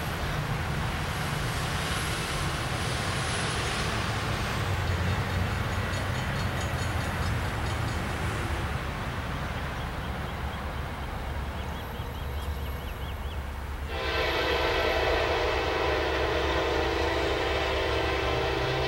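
Low, steady rumble of an approaching diesel freight train, then about two-thirds of the way in the locomotive's multi-chime air horn sounds and holds a long steady blast, the warning for a grade crossing.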